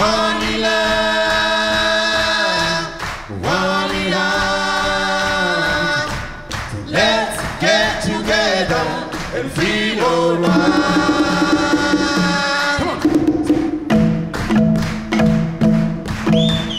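Music: a choir singing unaccompanied in held chords. Near the end the singing gives way to a steady rhythm of low struck marimba notes.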